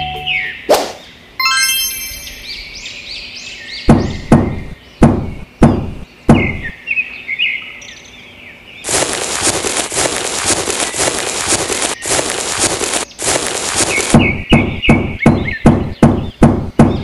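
A small metal trowel knocking on sand several times, then scraping across the sand for about five seconds, then a quicker run of knocks, with short bird chirps in between.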